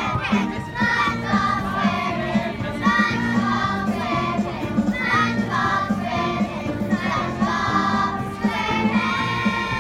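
Children's choir singing a song together over a steady, repeating low accompaniment.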